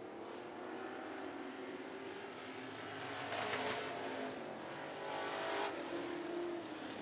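Engines of classic-class dirt-track race cars running at racing speed as the pack laps the oval, with two louder swells as cars pass close by, about three and a half and five and a half seconds in.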